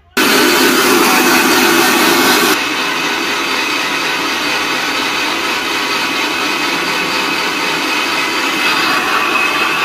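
Electric mixer grinder running, grinding a mustard-seed masala paste with garlic and chilli in its small jar. The motor noise starts suddenly, is loudest for the first two and a half seconds, then runs on steadily a little quieter.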